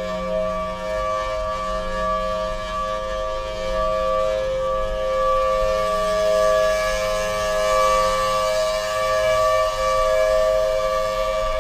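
Federal Signal Thunderbolt outdoor warning siren sounding a steady full-alert tone as a tornado warning. Several pitches are held steady together, and it grows louder in the second half.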